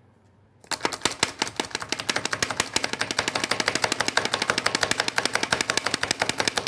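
Hand-operated food chopper chopping spinach: a fast, even run of sharp clicks from its blade mechanism, about ten a second, starting about a second in.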